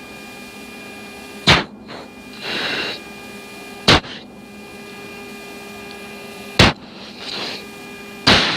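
F-16 pilot's sharp breaths through the oxygen mask on the cockpit hot mic during a high-G turn: a loud click-like gasp about every two and a half seconds, some followed by a short hiss of air. Underneath is the jet's steady cockpit hum with a few fixed tones.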